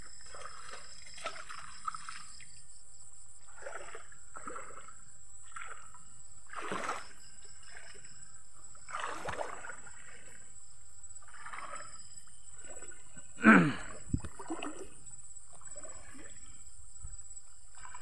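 Footsteps wading through a shallow stream, water sloshing and splashing with each stride every second or two, with one louder splash about three-quarters of the way through. Insects keep up a steady high-pitched trill underneath.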